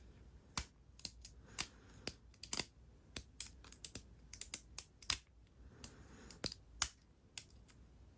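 Lock pick and tension wrench working the pins inside a Yale padlock's keyway: irregular sharp metal clicks, one to three a second, as the pick probes and lifts pins.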